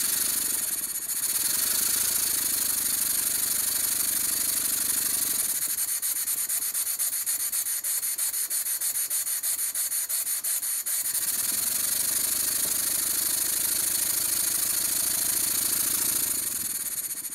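Stuart 10V single-cylinder model steam engine running fast on compressed air: a steady hiss of exhaust with rapid, even beats. For a few seconds in the middle the beats come apart more distinctly, then the fuller, faster sound returns.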